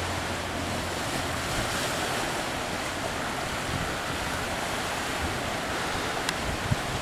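Steady ocean surf washing against a black lava-rock shore, with wind noise on the microphone.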